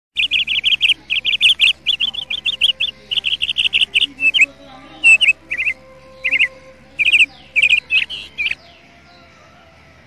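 A small bird chirping: quick runs of high, sharp chirps for about the first four seconds, then shorter groups of chirps that stop at about eight and a half seconds.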